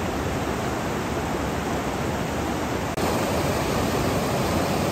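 Fast, swollen mountain stream rushing over rocks in whitewater: a steady noise of running water, a little louder from about three seconds in.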